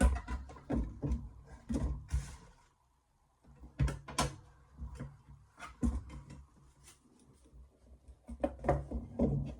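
Irregular knocks, clicks and clatter of objects being handled and set down on a workbench, in clusters with a short pause about three seconds in.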